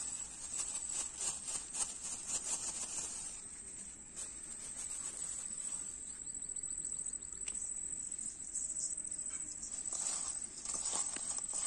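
An insect's steady, high-pitched drone, with the crinkle of a plastic bag and the handling of fish pieces in a steel bowl as turmeric and salt are rubbed in.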